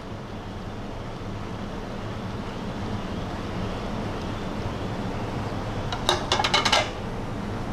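Sliced onions sizzling in hot mustard oil in a clay handi, the sizzle growing steadily louder. About six seconds in comes a quick run of sharp clicks or knocks.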